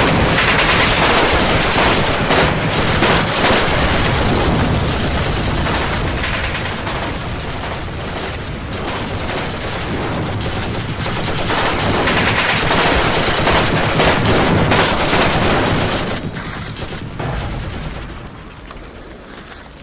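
Loud, dense crackling and rustling of a paper photo being torn and crumpled right against a phone's microphone, full of rapid clicks, dying down near the end.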